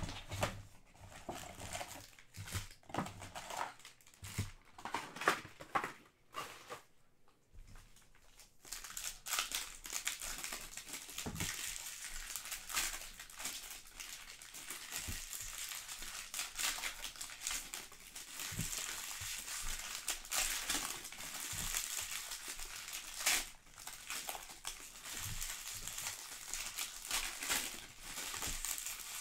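Scattered knocks and rustles as a cardboard trading-card box is handled, then foil card-pack wrappers crinkling steadily from about nine seconds in as the packs are picked up and handled.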